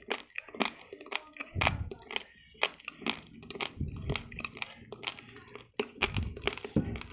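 Raw long-grain basmati rice being chewed close to the microphone: dry grains cracking and crunching in a quick, irregular run of sharp clicks, with a few duller low thumps.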